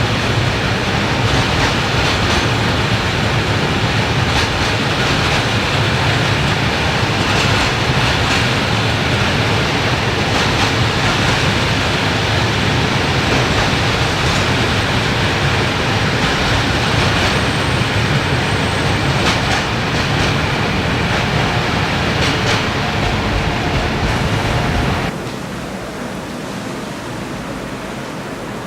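Freight train rolling past, a steady loud rumble of wagon wheels on the rails with scattered clicks. About 25 seconds in it cuts off abruptly to a quieter steady hiss.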